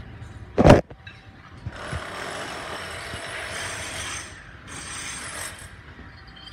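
A single loud knock less than a second in, then steady rushing noise with a few faint clicks and rattles of construction-site work.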